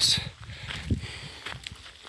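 Footsteps walking on a dry dirt path, a few soft, irregular thuds with light rustling of dry grass and twigs underfoot.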